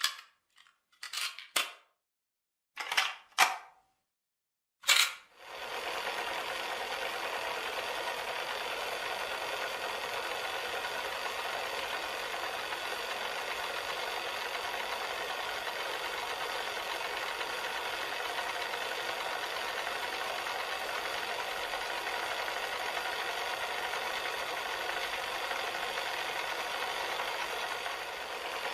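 Cassette player: a handful of sharp plastic clicks and clacks over the first five seconds, the loudest about five seconds in, then the machine runs with a steady, even mechanical whir.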